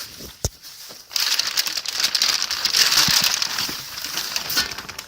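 A single knock, then packaging crinkling and rustling loudly for several seconds as a header is pulled out of its box.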